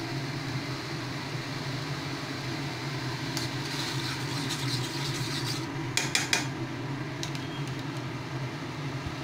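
Water with butter in a frying pan heating toward the boil, hissing and bubbling. In the middle a spatula stirs and scrapes the pan for a couple of seconds, ending in a few sharp taps. A steady low hum runs underneath.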